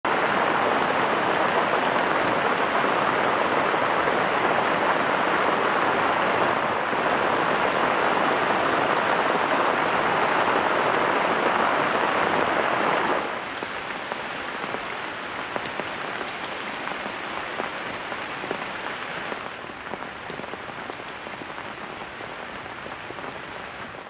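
Heavy rain falling as a dense, steady hiss. About halfway through it becomes clearly quieter, and single drops can be picked out.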